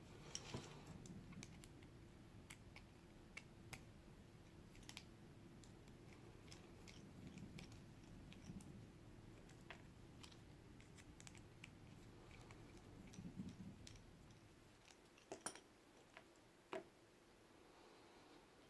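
Faint, scattered small clicks of a padlock being taken apart with a screwdriver, over a low steady hum. A few sharper clicks come near the end.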